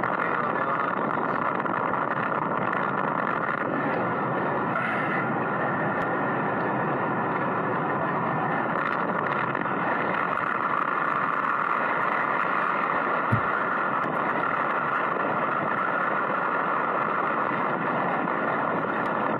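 Steady running noise of a vehicle driving along a dirt track: engine, tyre and wind noise that holds even throughout, with one short knock about thirteen seconds in.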